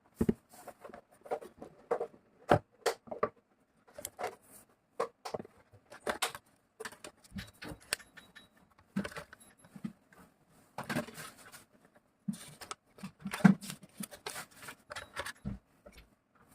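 Handling noises of a smartphone being unboxed: irregular clicks, taps, scrapes and rustles of the box and packaging being opened and handled.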